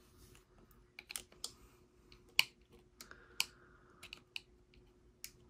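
Irregular small plastic clicks and taps: a thin flathead screwdriver prying at the snap tabs of a Shark ION robot vacuum's side-brush motor and gear housing, the sharpest click about two and a half seconds in.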